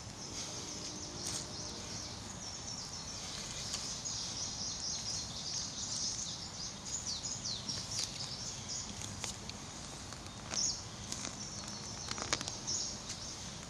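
Small birds chirping and twittering in quick, high, continuous runs of short notes, with a few sharp clicks or knocks now and then.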